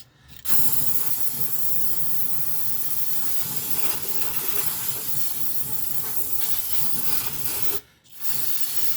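Aerosol can of brake parts cleaner spraying through its nozzle: one long steady hiss of about seven seconds, a brief break, then a second short spray near the end.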